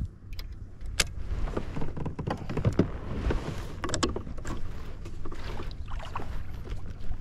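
Kayak on the water: water slapping and sloshing against the hull, with irregular sharp knocks and clicks.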